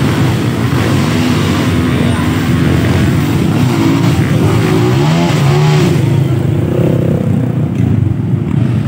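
Several dirt bike engines revving as riders climb a steep dirt slope. One bike close by rises and falls in pitch through the middle of the clip as it climbs past.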